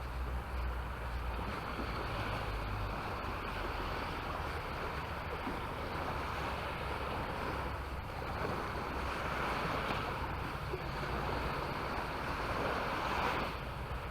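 Surf washing onto the beach, swelling and easing as the waves come in, with low wind rumble on the microphone.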